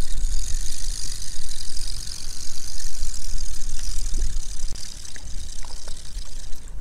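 Wind buffeting the microphone in uneven gusts, with a steady high hiss over it.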